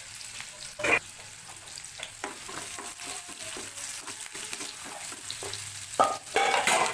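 Onion, cumin and chilli frying in hot oil in a pan, with a steady sizzle, while a spatula stirs and scrapes the pan in sharp strokes, loudest near the end.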